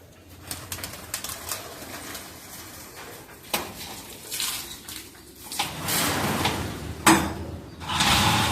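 Pigeons cooing, with wing flaps and scattered short knocks and rustles.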